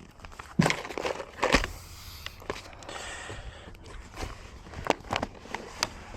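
Irregular clicks and knocks of locksmith tools working on a car door lock to open the locked car.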